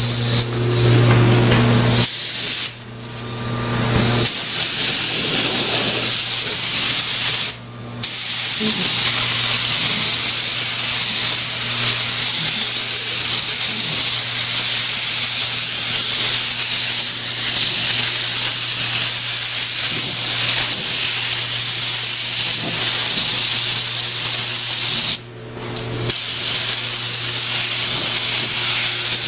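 Compressed-air paint spray gun hissing steadily as paint is sprayed onto a truck's body panels, over a steady low hum. The hiss breaks off three times as the trigger is released: near the start, about eight seconds in, and near the end.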